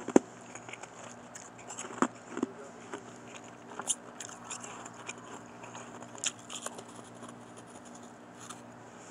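Shaved and crushed ice being crunched between the teeth: a few sharp, scattered crunches, the loudest just at the start, over a faint steady hum.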